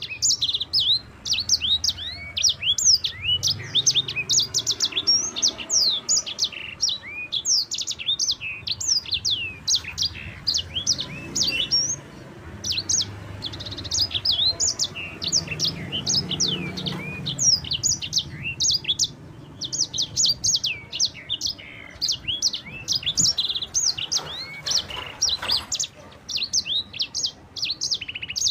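Sanger songbird singing a long, fast rolling song of quick sweeping chirps with hardly a pause.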